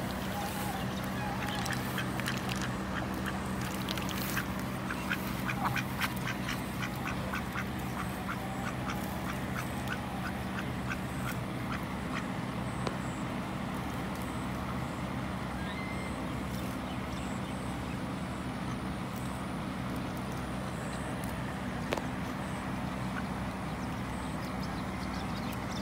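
Domestic ducks quacking, a quick run of short calls in the first half, then only now and then, over a steady low hum.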